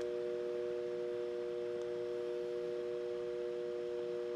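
A steady electronic tone, three pure pitches sounding together as one chord, held without a break or change.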